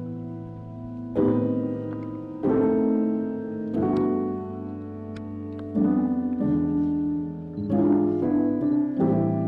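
Background music: slow solo piano, chords struck about every second or so and left to ring and fade.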